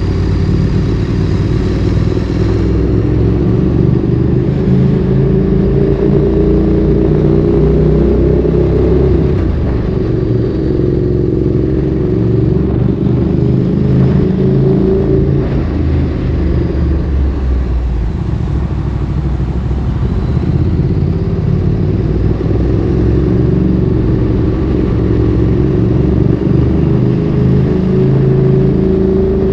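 Ducati Streetfighter 848's L-twin engine running through a Termignoni exhaust while being ridden, its revs rising and falling repeatedly.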